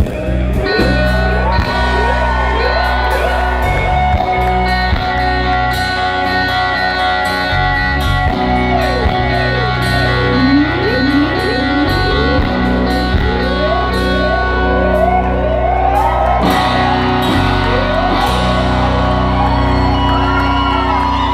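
Live rock band playing an instrumental passage: a lead guitar solos with repeated bends and slides over steady bass and drums.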